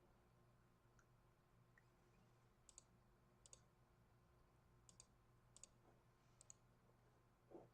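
Faint computer mouse clicks, several of them quick double-clicks, over a low steady room hum.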